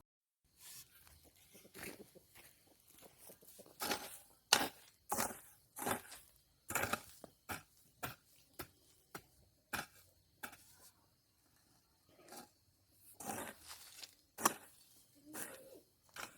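A hand tool digging into dry, crumbly soil: a string of uneven crunching, scraping strikes, one or two a second, with a short pause about two-thirds of the way through.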